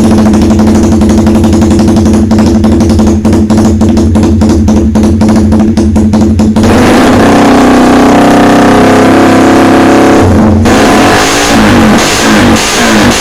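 Suzuki Satria FU motorcycle with a swapped-in Suzuki GSX engine running loud: a steady, pulsing run first, then held at high revs for about four seconds from the middle, then revved up and down in quick blips near the end.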